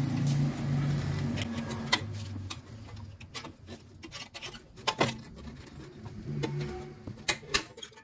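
Scattered sharp metal clicks and taps as two screwdrivers pry a rear brake drum off its hub. A low hum fades out over the first few seconds.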